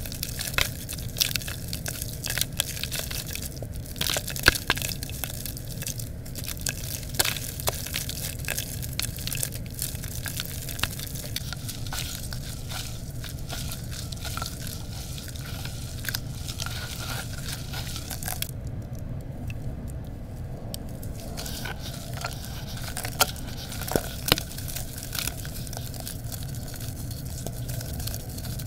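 Hands crushing water-soaked red gritty dirt bricks in a bucket of muddy paste: wet crumbling and crunching with many small sharp crackles.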